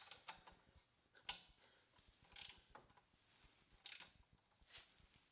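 Faint, scattered clicks of a ratcheting torque wrench as bolts are turned and tightened, about half a dozen short clicks spread over a few seconds.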